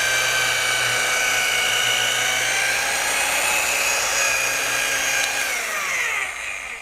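Rotary polisher running at steady speed while polishing out sanding marks in single-stage paint, a high whine with several pitched lines; about five and a half seconds in it is switched off and its whine falls in pitch as it spins down.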